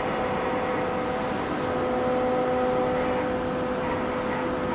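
CNC knee mill humming steadily with several steady tones while its Z axis is jogged slowly down. A lower tone joins about one and a half seconds in and fades near the end.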